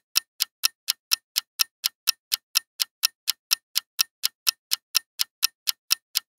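Ticking clock sound effect of a quiz countdown timer: short, even ticks at about four a second, running steadily while the timer counts down.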